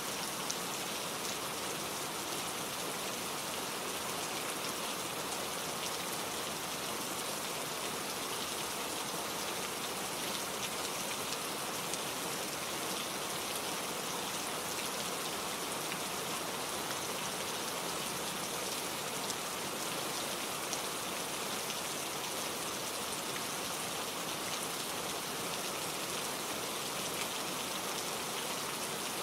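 Steady rain falling, an even hiss of drops pattering on surfaces without a break.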